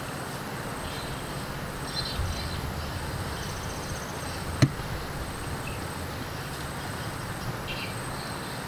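Riverbank ambience: a steady hiss with insects chirping in short bursts, and one sharp click about halfway through.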